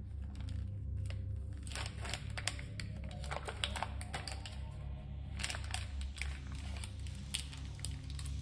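Rubber-gloved hands crinkling a small plastic packet and handling clear plastic tubing: a dense run of small crackles and rubs, busiest in the middle and near the end, over a steady low hum.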